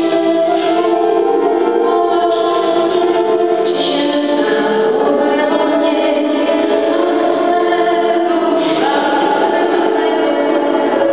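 A woman singing long held notes with piano accompaniment in a large church.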